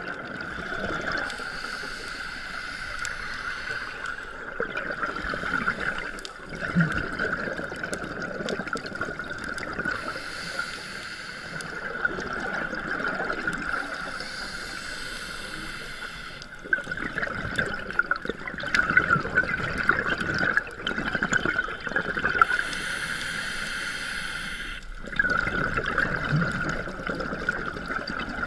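Scuba breathing heard underwater: the hiss of air drawn through a regulator alternating every few seconds with the gurgling rush of exhaled bubbles, over a steady high hum.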